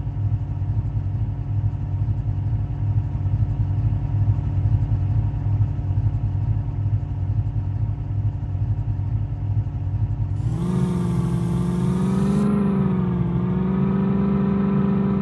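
Mahindra Thar's engine running at a low, steady rumble. About ten seconds in, the revs rise and it holds a higher, slightly wavering pitch under throttle.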